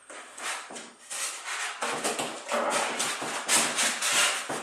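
Box packaging being worked loose: irregular rubbing and scraping as pieces are pulled and slid against each other.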